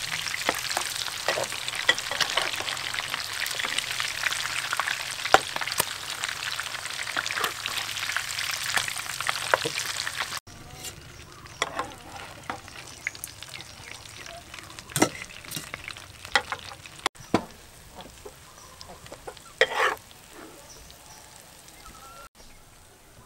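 Stuffed bell pepper rings frying in hot oil in a pan: a dense, crackling sizzle. About ten seconds in it gives way to a much quieter stretch with scattered light clicks and knocks, as fried rings are set into a stainless steel colander.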